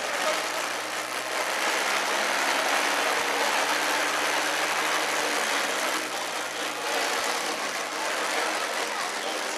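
A modified pulling tractor's big multi-cylinder engine idling steadily.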